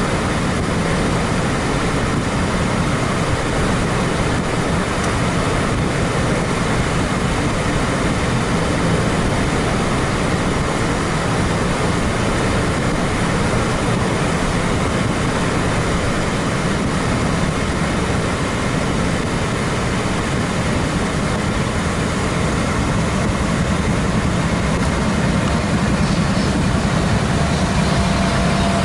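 Steady road and wind rumble of a car driving along, heard from inside the car.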